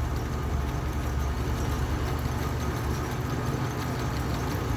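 Metal lathe running with a steady hum as the cutting tool takes an interrupted cut on an electric motor's rotor, the tool meeting metal only part of each turn because the rotor's surface is uneven.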